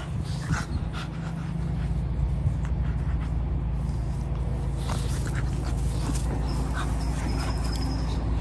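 Golden retriever puppy and brindle puppy play-wrestling quietly: soft scuffles, mouthing and panting, with no barking or growling. A steady low rumble runs underneath.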